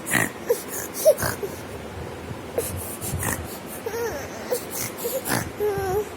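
Baby crying in short, breathy bursts that sound like snoring, with a few brief pitched wails in the second half.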